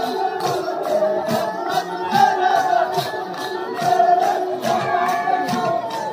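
Live Adivasi folk dance music: a held, wavering melody line over a steady beat of sharp, high percussion strokes, about four a second.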